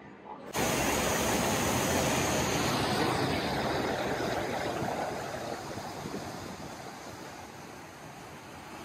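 Fountain water spraying and splashing: a steady rushing hiss that starts suddenly about half a second in and slowly fades toward the end.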